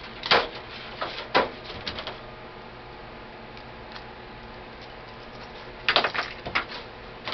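Sharp metallic clicks and clacks from an AK-47 being handled as its action is worked to clear it: a few at the start, then a quick cluster about six seconds in.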